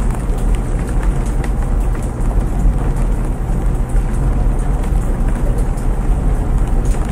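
Front-loading laundry machine tumbling a load with a steady low rumble, with rain pattering faintly in the background.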